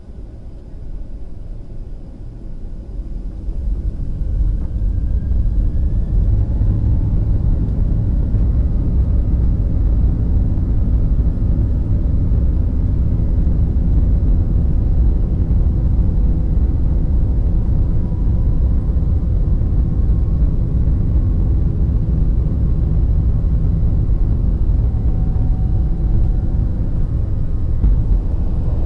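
Quadcopter camera drone in flight: a steady low rumble with faint motor whine above it, building over the first few seconds and then holding level.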